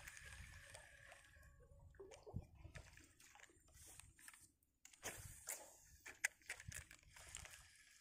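Near silence: faint water sloshing with scattered small clicks and knocks.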